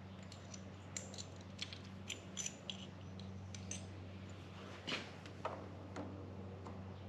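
Scattered light metallic clicks and clinks of a metal handlebar phone-mount clamp and its screws being handled and fitted, over a steady low hum.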